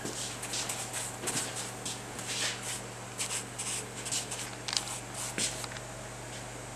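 A brush dabbing and scrubbing leak-test soap solution onto a cast-iron Ford Model A engine block, a run of short, irregular swishes, over a steady low hum.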